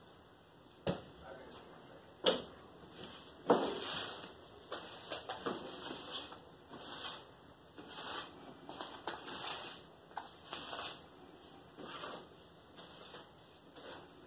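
Hands handling plant pots and potting soil: three sharp knocks in the first few seconds, then a run of short scraping and rustling sounds, one or two a second.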